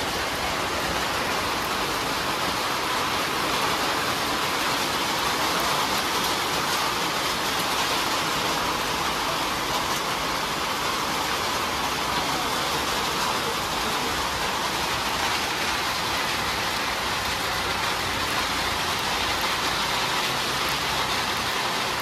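Steady rain falling on a pond's surface, an even hiss of drops with no breaks.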